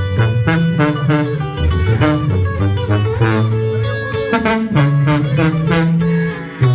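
Instrumental music: fast plucked guitars playing the melody over a tuba bass line of held notes that change pitch.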